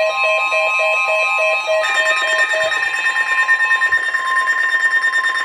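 Electronic alert tones of an Emergency Alert System warning on a TV broadcast: a rapid run of short beeps, about four a second, that stops about halfway, with a steady high alert tone holding on through the rest.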